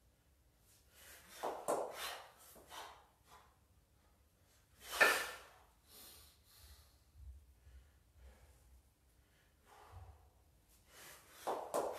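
A kettlebell lifter breathing hard: short, forceful exhalations in clusters, with one loud, sharp breath about five seconds in.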